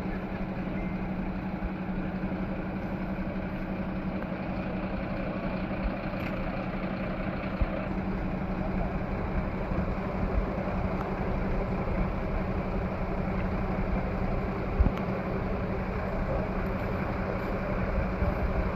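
A vehicle engine idling steadily, with a constant low hum, and a couple of brief knocks.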